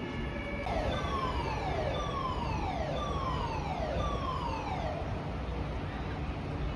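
Building fire alarm evacuation sounder: a falling tone, each sweep dropping in about a second and repeating about once a second, five times, then stopping about five seconds in. The pattern is the German standard evacuation signal (DIN 33404-3) calling people out of the hotel.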